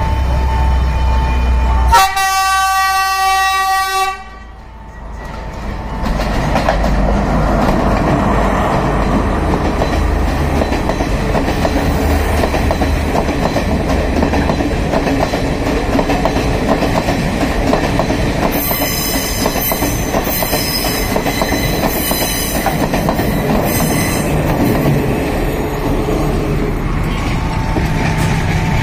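A passenger train sounds a single horn blast about two seconds in, lasting about two seconds, then passes close by with loud, steady wheel-and-rail clatter for about twenty seconds. A high squeal from the wheels comes through for a few seconds in the middle. A level-crossing warning bell rings steadily at the start and again near the end as the train clears.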